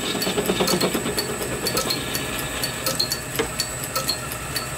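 Small vintage lathe running, its tool taking a cut along a half-inch hard bronze bar. There is a steady machine noise with frequent irregular sharp ticks as the chips break off, and a sharper click about three and a half seconds in.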